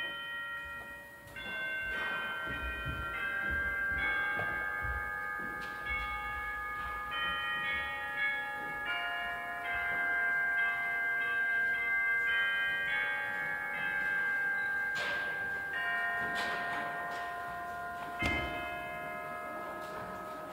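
Church organ playing a slow postlude of held, overlapping chords with a bell-like tone, the notes changing every second or two. A few soft bumps sound near the end.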